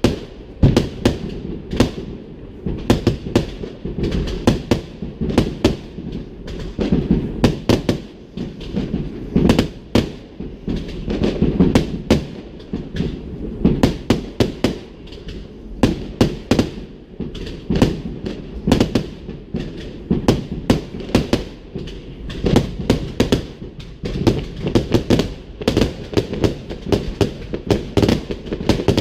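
Fireworks display: a dense, continuous barrage of bangs and crackles, several blasts a second, over a steady low rumble.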